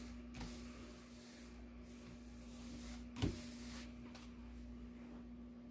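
Hands smoothing a T-shirt and laying a sheet of heat transfer vinyl on a heat press platen: faint handling and rustling with a few light clicks and one soft thud about three seconds in, over a steady low hum.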